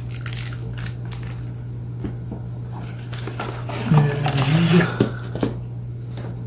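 Scattered light clicks and rustles of packaging and accessories being handled, over a steady low hum. A brief murmured voice comes in about four seconds in.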